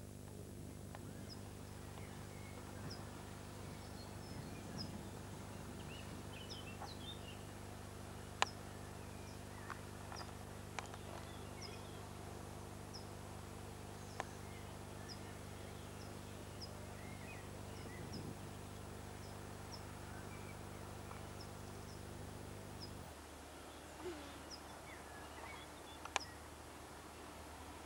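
Faint outdoor ambience of small birds chirping, short high calls repeating throughout, over a steady low hum that drops away about three quarters of the way through. A few sharp clicks stand out, the loudest about a third of the way in and near the end.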